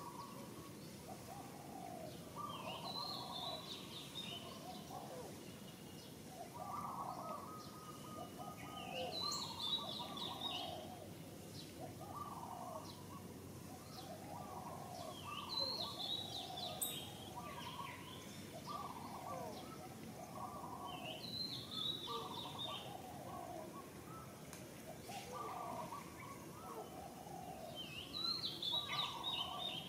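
Birds calling: a continuous run of short mid-pitched calls, with a higher, more complex phrase repeating about every six seconds.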